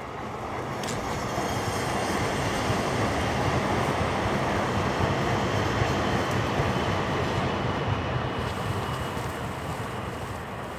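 A passing vehicle's rumble, swelling through the first half and fading toward the end.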